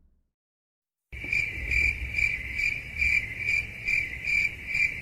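Cricket chirping, a high pulsing trill repeating about two to three times a second, starting about a second in after a moment of silence.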